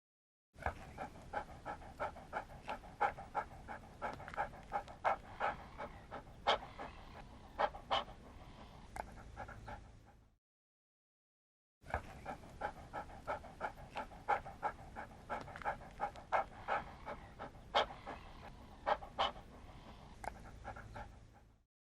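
Medium-sized dog panting, quick rhythmic breaths at two to three a second. Two runs of about ten seconds each, with a short break of silence between them.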